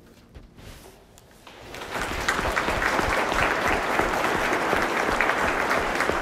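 A short hush at the end of a tune, then audience applause breaks out about two seconds in and keeps going steadily.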